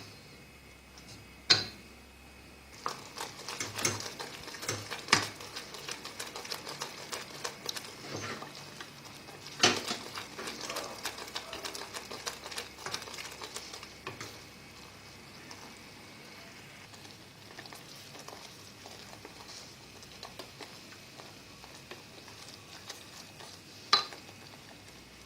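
A spoon stirring thickening sugar, lemon, ginger and honey syrup in a pan: rapid small clicks and scrapes of the spoon against the pan, busiest in the first half and easing off later. A few sharper knocks of the spoon on the pan stand out, the loudest about ten seconds in.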